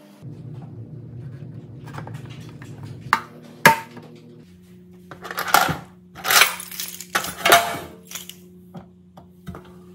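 Hinged door of a flush wall-mounted device compartment being pushed shut and swung open. A couple of sharp clicks come near the middle, then a series of rattling knocks as the door and its drop-down tray move.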